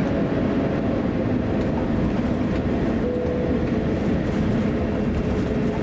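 Cabin noise of an Airbus A350-900 taxiing: a steady low rumble from its Rolls-Royce Trent XWB engines at taxi power and the landing gear rolling over the taxiway, with a faint steady hum coming in about halfway through.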